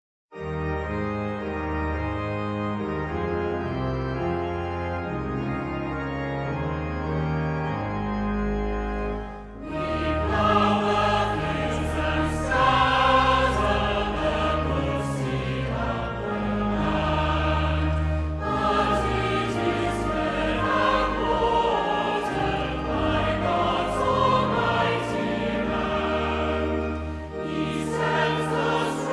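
A worship song begins with held keyboard chords. About ten seconds in, a choir comes in singing over the accompaniment.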